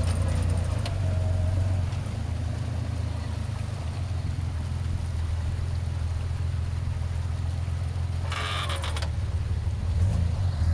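Toyota Land Cruiser FJ40's engine running steadily at low revs as it crawls over river rocks. About eight seconds in comes a short burst of higher, rasping noise.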